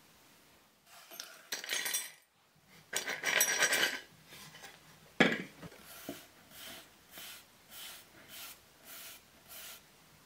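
Clinking and rattling of small metal parts, then a sharp knock, then a brush sweeping grit off a pine board in about seven quick even strokes, nearly two a second.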